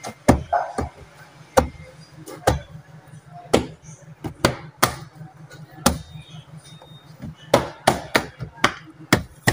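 About fifteen sharp knocks at irregular intervals, several in quick succession near the end: a Subaru XV's interior door trim panel being struck by hand to snap its plastic retaining clips back into the door.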